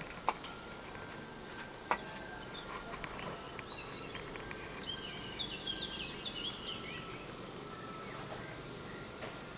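Outdoor background hiss with a bird chirping rapidly for about two seconds in the middle, and two sharp clicks in the first two seconds.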